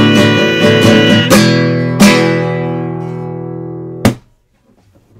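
Music: a strummed guitar playing a rhythm, closing on a final chord about two seconds in that rings out and slowly fades. A single sharp knock comes about four seconds in, then near silence.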